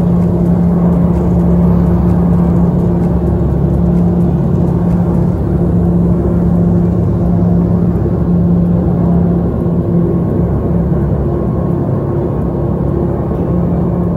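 Turboprop engines at takeoff power, heard from inside the passenger cabin: a loud, steady propeller drone over a low rumble.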